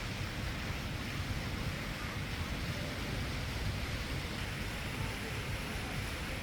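Steady outdoor city noise: an even hiss over a low, fluttering rumble, with wind on the microphone.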